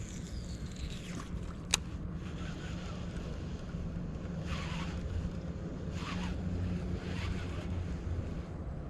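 Wind rumbling on the microphone outdoors, with a sharp click a little under two seconds in and a few brief swishing rushes of noise later on.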